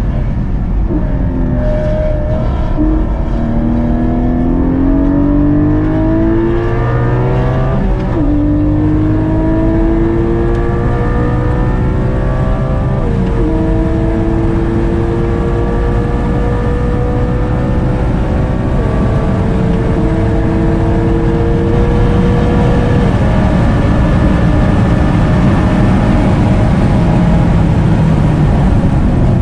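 A Porsche Cayman GT4's naturally aspirated flat-six, heard from inside the cabin at full acceleration on a race track. The engine note climbs in pitch and drops back at each upshift, about 8 and 13 seconds in and twice more later, then holds high.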